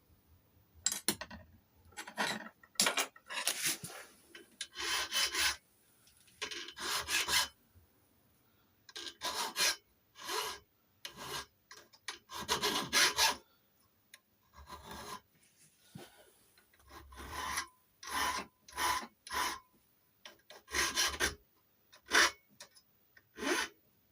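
Hand file rasping on a key blank in short, uneven strokes with brief pauses, cleaning up the edges of the cuts in a lever-lock key during impressioning.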